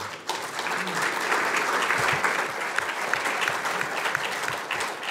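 Audience applauding, quickly building to a steady, dense clapping.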